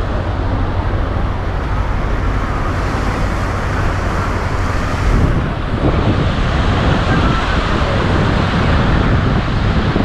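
Wind rumbling on the microphone over the steady wash of surf on a sand beach, gusting harder from about halfway.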